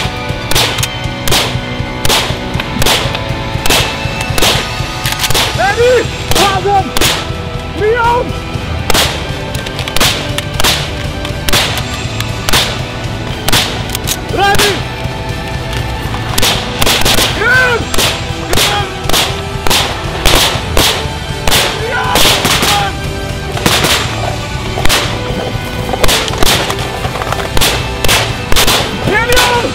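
Semi-automatic rifle fire from AK-pattern and vz. 58 rifles: many sharp single shots at an irregular pace, with quick pairs and short pauses between, over background music.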